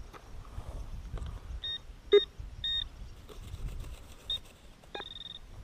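Metal detector signalling buried metal with short high-pitched beeps: three in quick succession, then a single one, then a longer stuttering tone near the end, over a low rumble.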